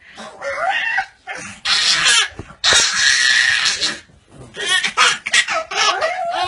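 A baby squealing and shrieking with laughter in harsh bursts, mixed with short squawky barks from a pug playing at its face.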